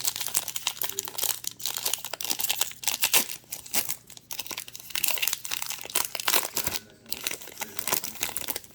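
Crinkling and tearing of a plastic trading-card pack wrapper being opened and handled, an irregular crackle that goes on with short breaks about four and seven seconds in.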